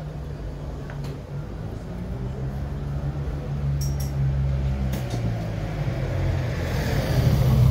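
Street traffic: a motor vehicle's engine running with a low drone that grows louder toward the end as a vehicle comes close. A few faint clicks come about halfway through.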